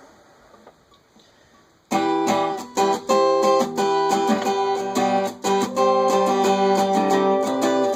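Acoustic guitar strumming chords as a song's instrumental intro, coming in sharply about two seconds in after a faint start.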